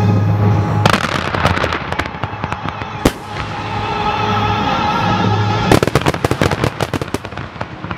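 Aerial fireworks going off over music. There are scattered bangs, one sharp report about three seconds in, then a dense run of rapid bangs and crackles from near the six-second mark as a large volley of shells bursts.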